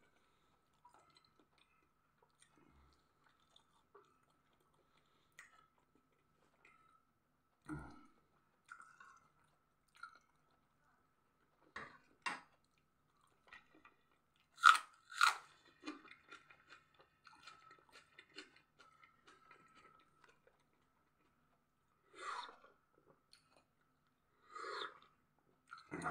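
Close-up sounds of a person eating: chewing and biting food, with several sharp crunches around the middle and another near the end.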